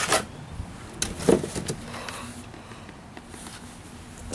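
Cardboard and packing paper rustling in a few short bursts as a boxed model is lifted out of a shipping carton, over a faint low steady hum.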